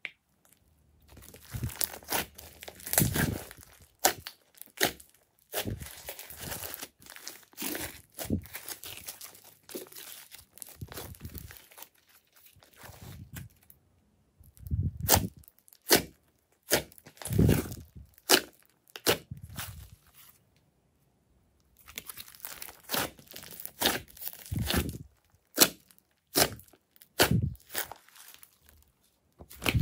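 Glossy slime being stretched, folded and pressed by hand: sticky crackles and clicks in irregular bursts as it pulls apart and is pushed down. It goes nearly silent for about a second and a half past the middle, then the crackling resumes.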